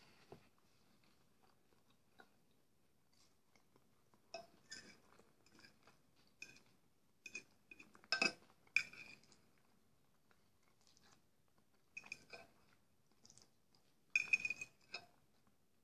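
Metal fork clinking and scraping against a ceramic bowl in short clusters of ringing taps, loudest about eight seconds in and again near the end, with chewing of meat aspic in between.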